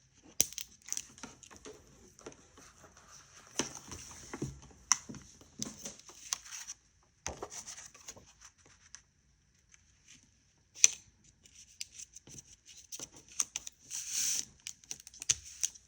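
Cardstock papercraft pieces being handled and laid on a work surface: scattered light taps, clicks and paper rustles, with a short quiet pause a little past halfway and one sharper click just after it.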